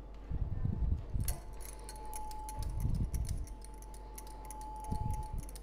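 Hands tearing a lump from a bowl of soft wheat-flour dough and rolling it into a ball: soft low thuds and squishing in three short spells, with many light clicks in between.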